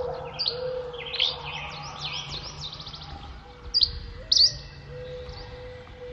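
Dawn chorus of several songbirds singing at once: rapid runs of quick sweeping chirps and trills, with two sharp, loud calls about four seconds in. A steady low tone hums underneath.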